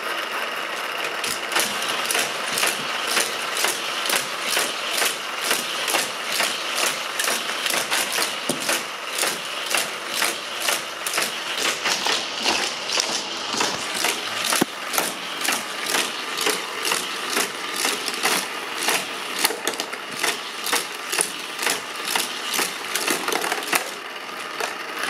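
Battery-powered booster rollers of a Hot Wheels Criss Cross Crash track whirring, with a clack about twice a second as die-cast toy cars are shot through the boosters and around the plastic loops. The clacking dies down near the end. Very noisy.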